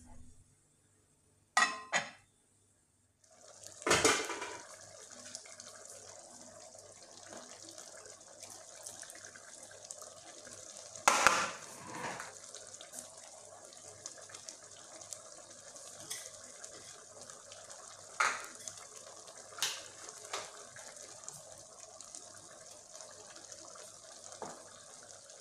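Pot of rice cooking in palm-fruit (banga) sauce, giving a steady bubbling hiss from about three seconds in, with a few sharp knocks of a utensil against the pot, the loudest two near the start and about halfway through.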